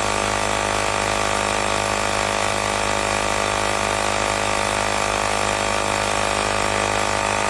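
Portable electric tire inflator's air compressor running at a steady pace, an even, loud mechanical drone with a buzzing, whining tone.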